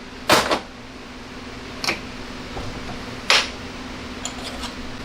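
Pieces of cut aluminum stock being handled: three metal clinks and knocks about a second and a half apart, then a few faint ticks near the end.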